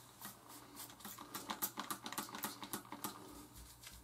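Fingertips scrubbing shampoo into a wet scalp through freshly installed sisterlocks: a faint, irregular crackle of small wet clicks, several a second, busiest in the middle.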